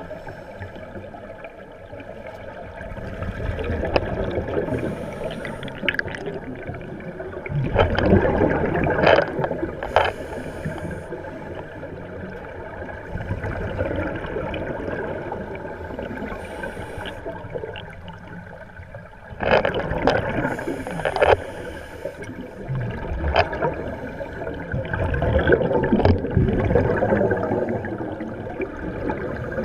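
Scuba divers' exhaled bubbles gurgling and rushing, recorded underwater, swelling in surges a second or two long several times.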